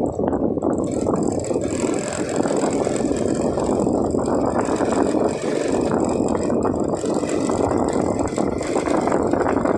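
Small motorcycle riding slowly, a steady run of engine and road noise heard from the rider's seat.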